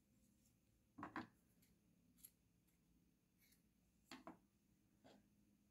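Scissors snipping yarn: two short double-click cuts, about a second in and again about four seconds in, with a few faint ticks between.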